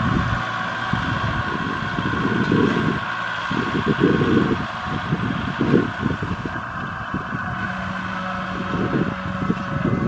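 Farm tractor engine running steadily as it pulls a loaded trailer, with irregular gusts of wind buffeting the microphone.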